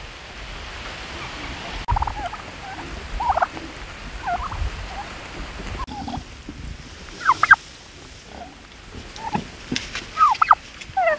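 A flock of domestic turkeys calling: short, high yelping calls that rise and fall in pitch. They come scattered at first and thicker near the end, with a pair of louder calls a little past halfway.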